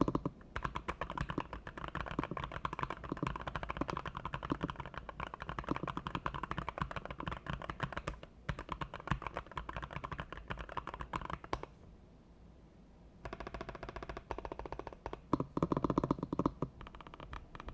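Typing on a NuPhy Field75 mechanical gaming keyboard: a dense, steady run of keystroke clacks for about eleven seconds, a brief pause, then a few short, rapid bursts of keystrokes near the end.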